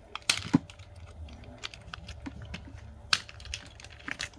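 Plastic wire-harness connectors being worked loose and pulled off a rice cooker's circuit board: a few scattered sharp clicks and plastic rattles, the loudest about a third of a second in and another about three seconds in.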